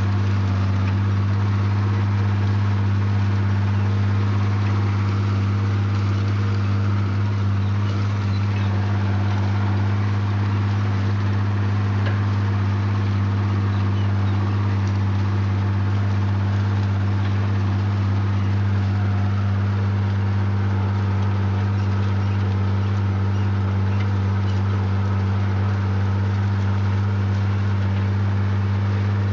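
Diesel engine of a large farm machine running at a steady, constant speed, with a low, even drone that never changes in pitch or loudness.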